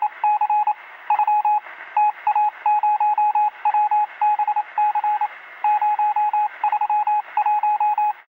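Morse code sound effect: a single-pitch beep keyed rapidly on and off in short and long pulses, dots and dashes, over a bed of radio static. It cuts off suddenly near the end.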